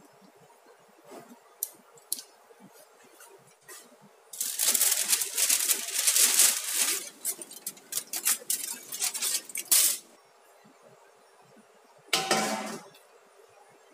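Aluminium foil crinkling loudly for about six seconds as it is handled on the pot, then a steel serving tray set down on the pot with a short metallic clank that rings briefly.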